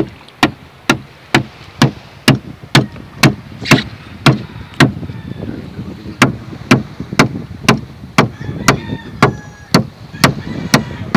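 A machete chopping into a freshly caught marlin just behind the head, blade hitting flesh and bone in a steady rhythm of about two blows a second, with a short pause about five seconds in.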